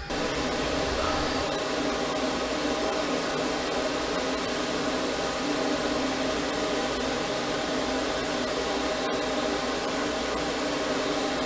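Pet grooming blow dryer running steadily while drying a freshly bathed dog: a constant rush of air with a low hum.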